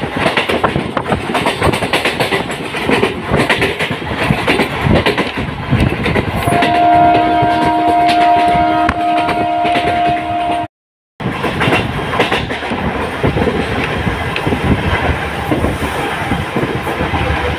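MEMU electric commuter train heard from aboard while running at speed: a steady rumble and rattle of the wheels on the rails. About six seconds in, a train horn blows one steady note for about four seconds. The sound drops out completely for about half a second just after the horn stops.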